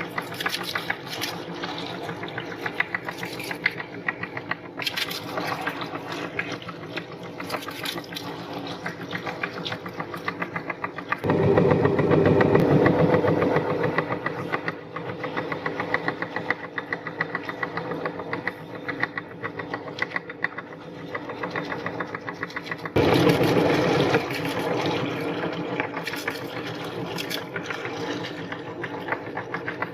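Electric meat grinder running with a fast, even mechanical rhythm as items are fed through it, turning louder and heavier for a few seconds about 11 seconds in and again briefly about 23 seconds in.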